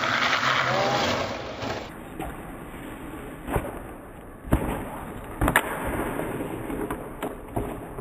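Longboard wheels sliding across asphalt in a hissing scrape during a hand-down slide. After a cut, the board rolls more quietly, with a few sharp clacks on the road.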